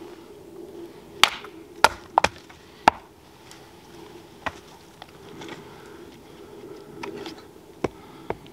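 Bearded axe chopping through frozen firewood on a chopping block: a quick run of sharp chops and cracks starting about a second in, then a few lighter wooden knocks later as the split pieces and the next log are handled.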